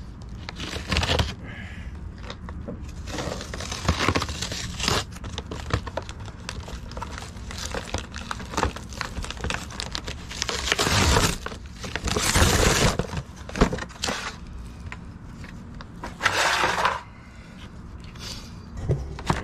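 Plastic wrapping crinkling and rustling in repeated bursts as it is pulled off a new radiator fan assembly, with a few sharp knocks from handling the plastic fan shroud.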